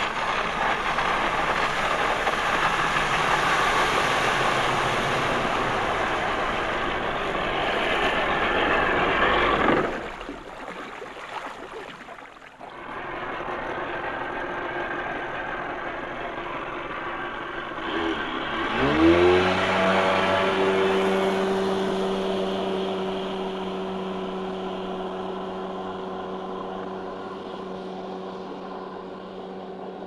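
Jet ski engines running on open water. A loud steady run with water hiss cuts off about ten seconds in to a quieter pass. Near the two-thirds mark an engine revs up with a quick rising whine and holds a steady high note that slowly fades.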